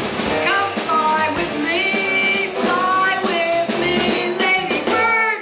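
Jazz combo of piano, double bass, saxophone, guitar and drums playing the closing phrases of a tune, the music cutting off right at the end.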